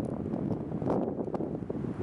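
Wind blowing across the camera microphone: a low rushing noise that swells and drops in irregular gusts, with short buffeting hits.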